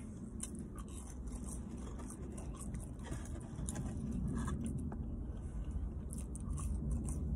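Close-up chewing and biting of french fries and battered fried food, with scattered small clicks, over a low steady rumble.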